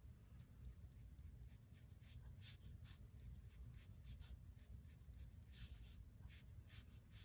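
Faint watercolour brush strokes on paper: short, irregular scratchy swishes over a low steady room hum.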